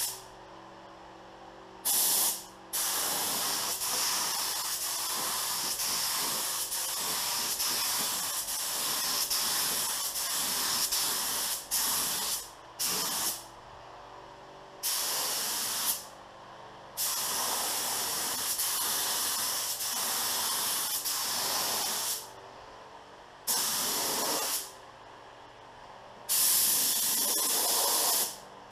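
Pro-Tek 4000 HVLP gravity-feed spray gun laying clear coat at about 28 PSI: a steady air hiss in long passes, cut off by short pauses each time the trigger is let go, several times over.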